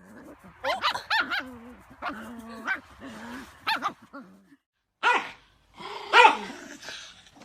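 A dog barking several times, some calls drawn out and bending in pitch, with short pauses between them.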